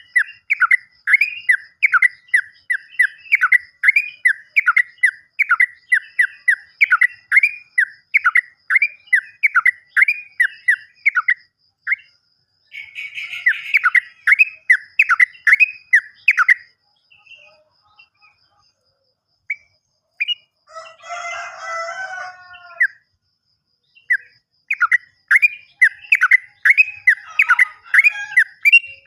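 Yellow-vented bulbul (trucukan) singing a long run of rapid, repeated, down-slurred whistled notes, about two a second. The run breaks off partway through and a short harsher chattering phrase comes in the middle, then the repeated notes start up again near the end.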